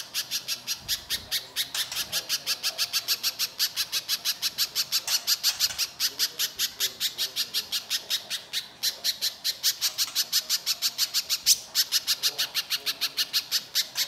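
Little spiderhunter giving an unbroken run of harsh, rasping notes at about four to five a second.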